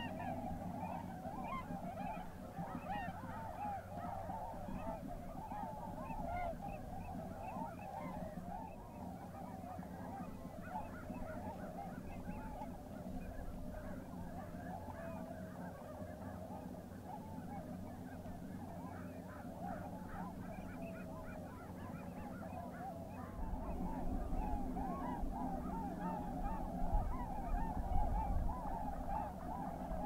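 Dense chorus of a large flock of tundra swans and other waterfowl calling continuously, many overlapping calls at once. A little over two-thirds of the way through, a low rumble joins in underneath.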